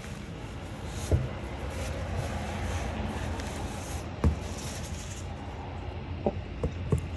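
Paper towel rustling as gloved hands are wiped, then a few light knocks as small resin mixing cups are picked up and set down on the table, over steady background noise.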